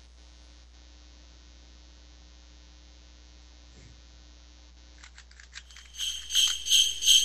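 A faint steady hum, then from about five seconds in a few light clicks. These lead into loud metallic jingling, like a small bell or keys being shaken, pulsing about three times a second.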